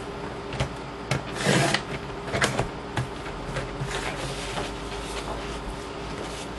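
Sheets of cardstock-weight scrapbook paper being slid, shifted and lifted on a rotary paper trimmer, with light clicks and knocks of handling. A louder sliding scrape comes about a second and a half in.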